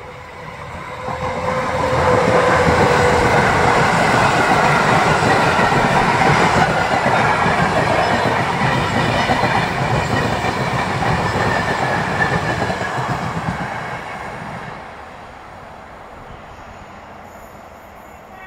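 Passenger train hauled by an electric locomotive passing close by at speed: a loud rush of steel wheels on rail with clickety-clack and a faint high whine, building over the first two seconds and dying away about three-quarters of the way through as the coaches recede.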